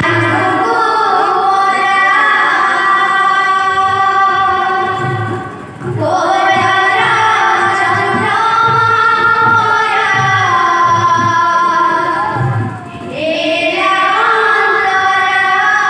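A woman singing a devotional kirtan melody in long, held, ornamented lines, with short breath breaks about six seconds in and again near thirteen seconds. Two-headed barrel drum strokes sound low underneath.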